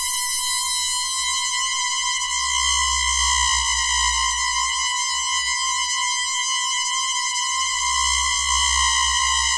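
Synthesized sci-fi electronic drone: a steady, slightly wavering tone with a stack of higher overtones, over a low rumble that swells and fades.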